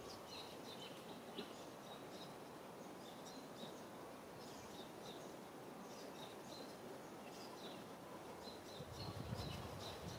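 Small birds chirping in short, high, scattered notes over a steady faint outdoor hiss, with a low rumble near the end.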